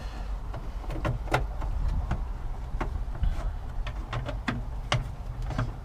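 Scattered light clicks and knocks at an irregular pace over a steady low rumble.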